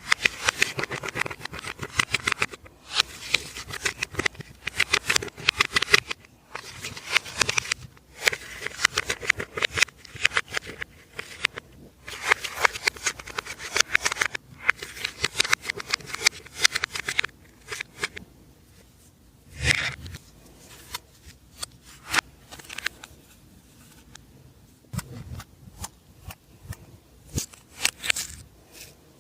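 Slime being kneaded and stretched by hand, making sticky crackling and popping in repeated stretches of a few seconds. In the second half it thins out to scattered single pops and squishes.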